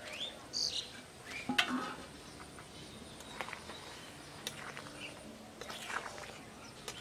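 Faint outdoor background of short, high bird chirps and a faint steady insect trill, broken by scattered light clicks and one louder knock about a second and a half in.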